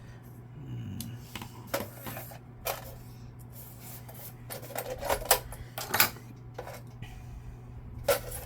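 Small hard parts and tools being handled on a work surface: a series of separate sharp clicks and clacks, the loudest two about a second apart just past the middle, over a steady low electrical hum.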